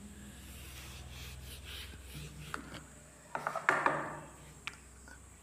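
Felt whiteboard duster rubbing across a whiteboard, followed by a few handling clicks and rustles, the loudest cluster about three and a half seconds in.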